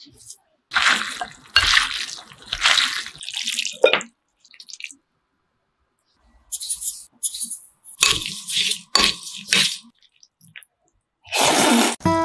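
Wet mixing sounds of noodles being tossed with a sauce in a bowl, coming in irregular bursts with short pauses between them.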